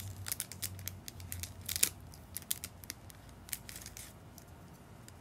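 Paper card crinkling and small plastic clicks as a 3D-printed bat and its instruction card are handled, in a quick irregular run of sharp ticks and rustles, loudest just under two seconds in, dying down near the end.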